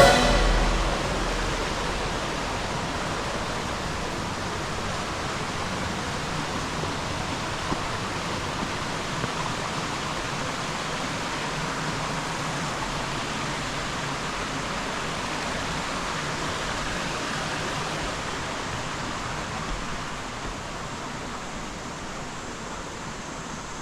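Steady rush of falling and running water from a woodland waterfall and stream, growing slightly fainter near the end.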